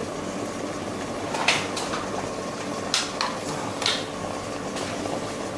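Chopped parsley and garlic frying in oil in a pan over a gas flame: a steady sizzle with a few sharp pops and crackles in the middle of the stretch.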